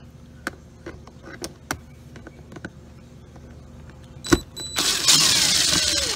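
Yellow cordless drill-driver backing out a door trim panel bolt: a few light clicks and a sharp knock as the bit is set on the bolt, then the driver whirs for about a second and a half, falling in pitch before it stops.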